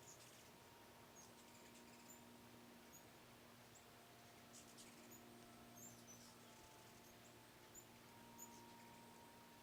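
Faint, high-pitched chips and squeaky twitters from hummingbirds at a sugar-water feeder, scattered through, with a brief burst of chattering about halfway.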